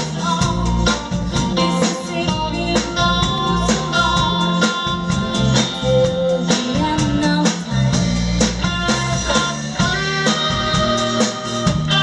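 Live band playing a song with a steady beat: a woman singing over acoustic and electric guitars, tambourine and drum kit.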